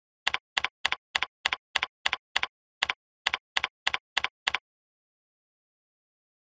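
Typing on a computer keyboard: about fourteen keystrokes at roughly three a second, with a short pause about halfway, then the typing stops.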